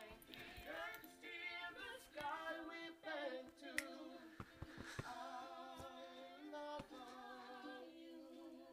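Faint singing with a wavering pitch over two steady held notes, music playing in the background, with a few soft clicks.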